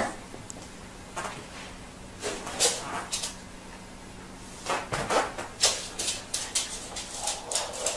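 Scattered taps and clicks that turn into a quick run of clicks about five seconds in: a beagle's claws and an African grey parrot's feet on a tiled floor as the dog gets up and moves around the parrot.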